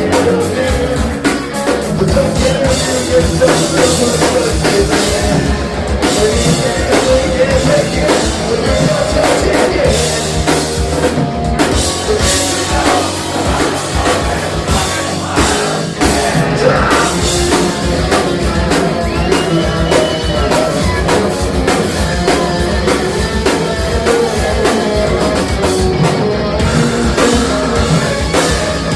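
Punk rock band playing a fast song live and loud: pounding drum kit under electric guitars and bass.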